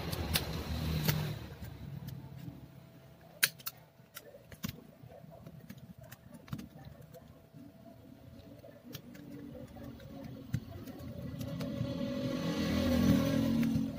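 A motor vehicle engine running nearby, fading out over the first couple of seconds and building louder again toward the end. A few sharp clicks as the keyboard's metal backing plate is prised off the laptop top case's plastic locks.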